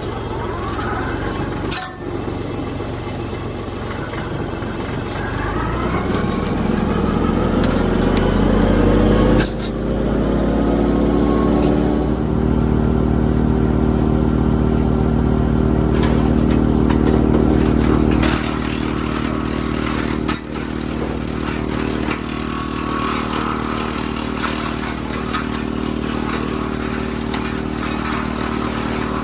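Kubota L3901's three-cylinder diesel engine driving a WoodMaxx MX-8800 PTO wood chipper, with the pitch rising twice in the first ten seconds as the engine and chipper rotor spin up, then running steadily at speed. Scattered clattering comes through in the second half.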